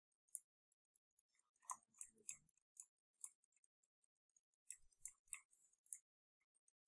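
Near silence with faint scattered clicks and taps from working at a computer, bunched about two seconds in and again about five seconds in.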